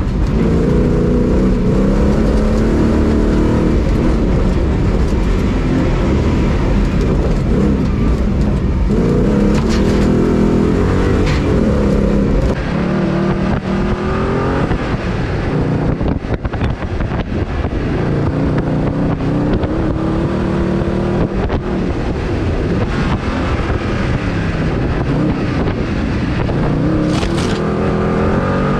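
Off-road rally 4x4's engine driven hard along a dirt track, its pitch climbing and breaking off again and again as it revs up through the gears. About twelve seconds in, the sound switches from inside the stripped cabin to the bonnet and becomes thinner, with less bass.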